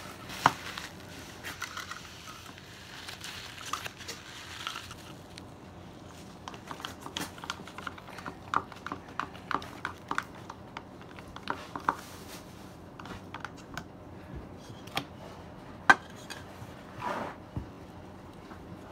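Borax slime being scooped and handled in a bowl: scattered light clicks and taps of a utensil against the dish with a faint crackly rustle, and two sharper knocks, one just after the start and one late on.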